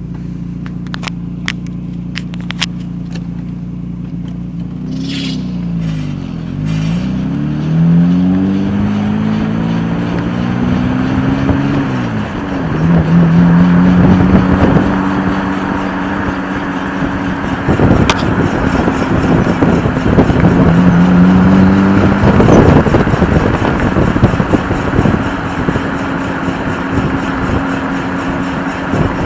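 1993 Ford Probe GT idling, then pulling away with its engine note rising and falling through the gears. From about halfway on it runs at steady speed with road noise and a steady drone, the sound of a bad wheel bearing.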